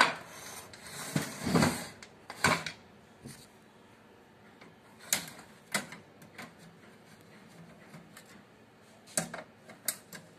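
HP LaserJet printer being taken apart by hand: plastic and metal parts clatter and knock several times in the first few seconds, then scattered sharp clicks as a screwdriver works at the printer's side.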